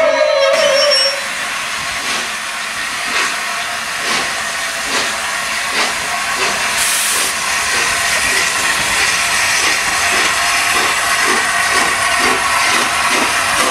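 Peppercorn A1 Pacific steam locomotive 60163 Tornado, a three-cylinder engine, pulling away. Its exhaust beats start slow and quicken to two or three a second over a steady hiss of steam. The first second holds the noise of a passing train.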